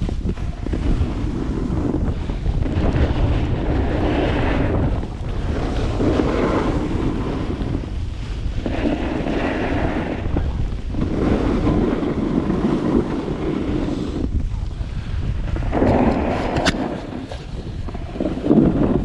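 Wind rushing over the microphone during a downhill run on snow, with the scraping hiss of edges on the snow swelling every couple of seconds as turns are made.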